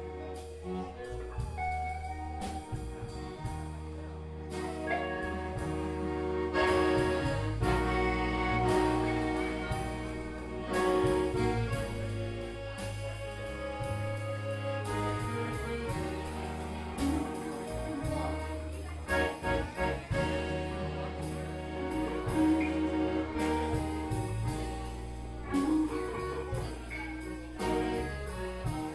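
Live band playing an instrumental passage with no singing: drums and bass guitar keep a steady groove under lead melody lines.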